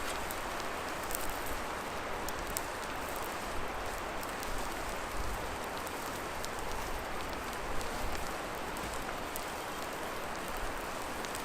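Food sizzling in a pan over a campfire: a steady hiss with scattered small pops and crackles.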